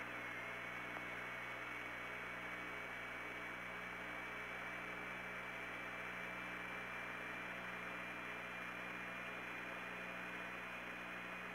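Open radio loop hissing between transmissions, with a low hum and a faint steady high whistle tone that drifts slowly upward in pitch.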